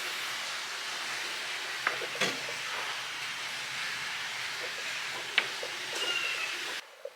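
Steady broad hiss of indoor background noise, with a few sharp clicks and a brief squeak; it cuts off suddenly near the end.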